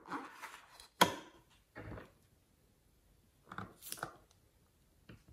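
Rubber balloon squeaking and rustling in the hands, a sharp click about a second in, then small scissors snipping through the balloon's rubber tip about four seconds in.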